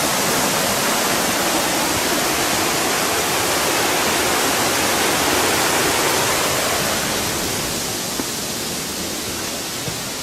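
Steady rush of falling water from a mountain waterfall, easing off a little about eight seconds in.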